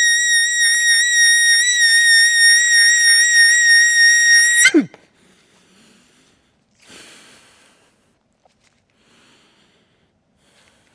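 Harmonica holding one long high note, wavering slightly, that falls quickly in pitch and stops nearly five seconds in. A short faint rustle follows about two seconds later.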